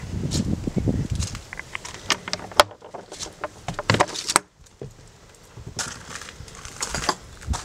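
Footsteps, then the metal ring latch of a wooden garden gate clicking and rattling as it is worked by hand, with a sharp metallic click about two and a half seconds in and a cluster of clicks near four seconds. Footsteps crunch on gravel near the end.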